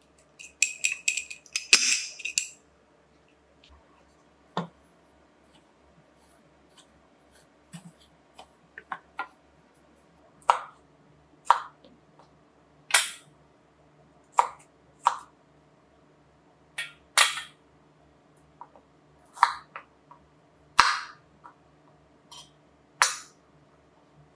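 A brief flurry of sharp crackling clicks in the first two seconds, then a kitchen knife cutting broccoli and carrot on a wooden chopping board: single sharp chops every second or two.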